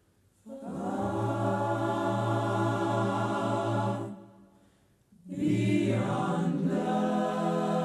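Slow choral singing: a long held chord for about three and a half seconds, a short break, then a second held chord from about five seconds in.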